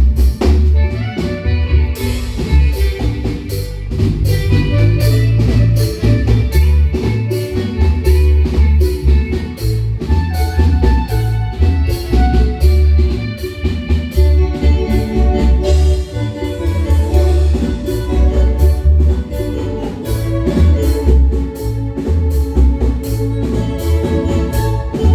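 A marimba band plays live dance music: struck marimba notes over a steady, rhythmic bass line, with drum kit.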